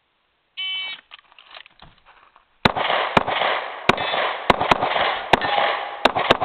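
Electronic shot-timer start beep, then about two seconds later a string of .45 ACP pistol shots, about eight sharp reports over four seconds with echoing gunfire filling the gaps between them.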